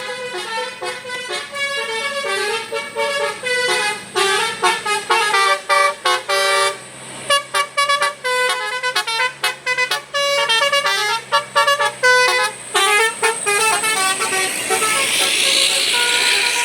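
Indonesian bus 'telolet basuri' musical horn playing a fast tune of short notes that step up and down in pitch. A hiss swells up near the end.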